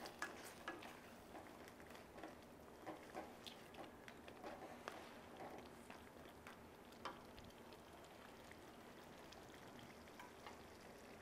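Faint stirring of a thick crab masala gravy with a wooden spatula, with soft scattered pops of the gravy simmering in the pan; the small clicks thin out after about seven seconds.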